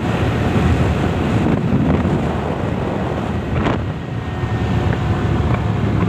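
Motorcycle running steadily along a road, with heavy wind buffeting the microphone.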